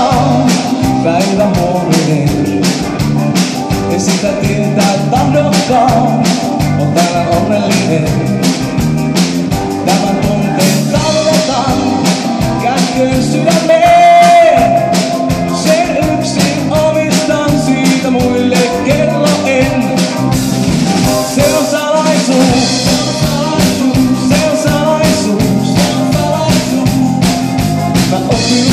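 Live band playing a song on drum kit, electric guitars and keyboard, with a man singing into a microphone over it.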